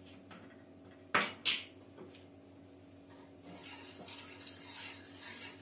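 Two sharp clatters of kitchenware about a second in, then quieter clinks and rustling of utensils being handled, over a steady low hum.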